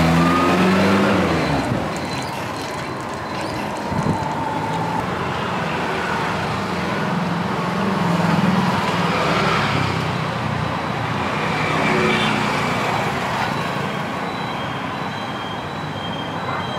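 Road traffic: motor vehicles passing steadily, with one vehicle's engine going by in the first couple of seconds and a single knock about four seconds in.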